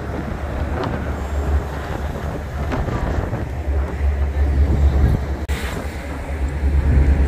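Wind buffeting the microphone on the open deck of a moving ferry: a steady low rumble with a rushing hiss above it. The level dips briefly about five and a half seconds in.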